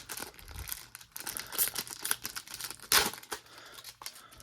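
Trading card pack wrapper being torn open and crinkled: a run of irregular crackles and rustles, with one sharp, louder crack about three seconds in.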